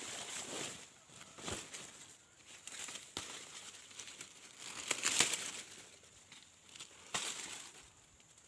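Irregular rustling and crinkling of dry corn leaves and husks being handled, with scattered sharp crackles, the loudest about five seconds in.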